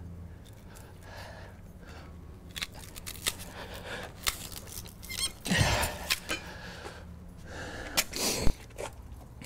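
Large bolt cutters squeezing and biting into the composite strap of a Litelok Gold bike lock: a series of sharp snaps and crunches, louder ones about halfway through and the loudest near the end. The cutters only snap bits off the outer layer; something inside the strap stops them going further.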